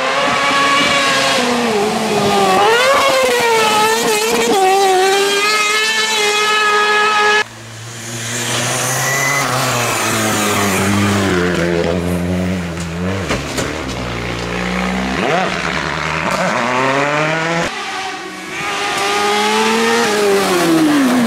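Rally car engines revving hard and falling back through gear changes as the cars pass on a stage, several passes with abrupt cuts between them, about seven and eighteen seconds in.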